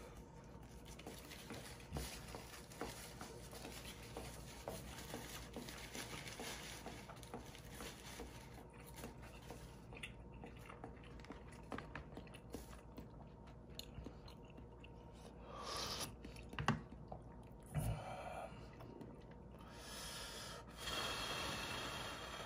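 Close-miked chewing of instant ramen noodles, with soft wet mouth sounds and occasional sharp little clicks, and a few louder noisy stretches near the end.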